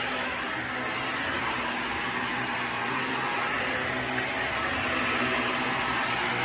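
Hoover React PowerReach Premier Pet vacuum running steadily, an even motor whir with a low hum under it.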